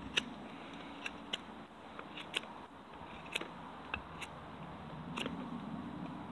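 Condor Bushlore knife carving a point on a hardwood tent stake: about nine short, sharp cuts at an irregular pace as the blade shaves the wood.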